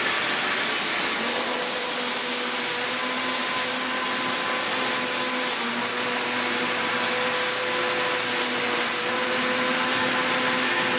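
Robotic MIG arc welding on a steel conveyor chain: a steady, even hiss of the welding arc, with a steady machine hum underneath.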